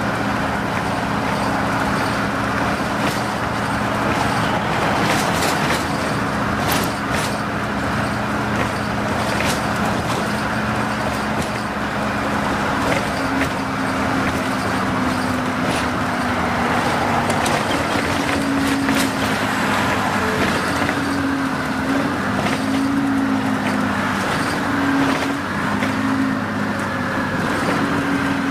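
Orion V CNG transit bus under way at speed: steady engine hum over road and tyre noise, with scattered clicks and rattles. The engine note wavers up and down in the second half.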